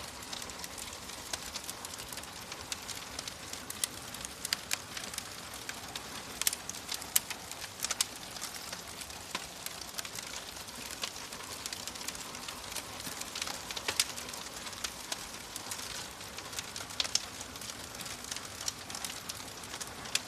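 Wood fire burning in a fireplace: a steady soft hiss with frequent sharp, irregular crackles and pops.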